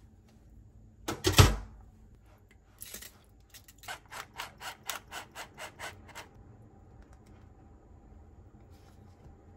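Kitchen handling sounds while dressing cucumber on a bagel: a loud knock about a second in, then a run of about nine quick, even strokes, about four a second.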